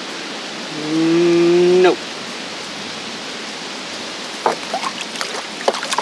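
A man's voice gives a held, hummed "hmm" of about a second, one steady tone turning up slightly at its end, over the steady wash of creek water. From about four seconds in come a few short splashes and clinks as a plastic gold pan is dipped and worked in the shallow pool.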